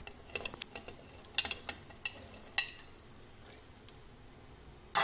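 A spoon clicking and tapping against the metal pressure cooker as chopped onions are tipped in and mixed: a scattering of sharp, ringing clicks over the first few seconds.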